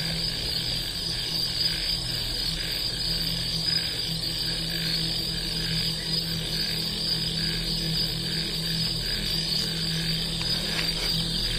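Steady chirping of night insects over a low, pulsing drone, with no voices.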